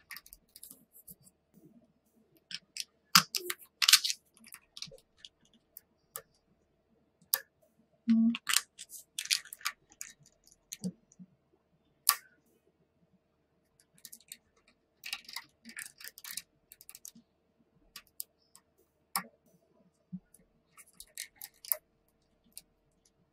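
Small neodymium magnet balls clicking and snapping against each other as a chain of them is laid onto a model built of magnet balls. The clicks come in several quick clusters with pauses between.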